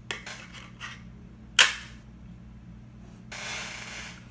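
A 3D-printed plastic case being handled: a few light plastic clicks, a sharp snap about a second and a half in as the lid goes onto the case, then a brief scraping rustle near the end.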